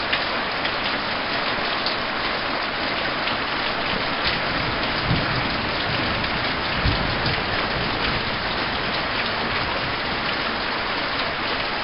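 Heavy storm rain falling steadily, with many sharp drop-hits close by. Two brief low thumps come about halfway through.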